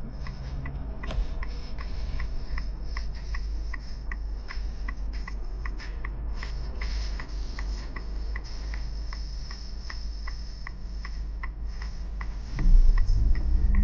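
Car turn-signal indicator ticking evenly, about three ticks a second, over the low hum of the idling engine. Near the end the engine gets louder as the car moves off.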